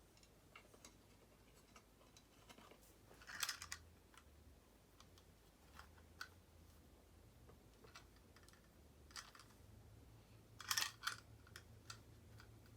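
Quiet handling of electrical wires and connectors: scattered small clicks and scrapes, with two short bursts of louder rattling about three and a half seconds in and again near the end.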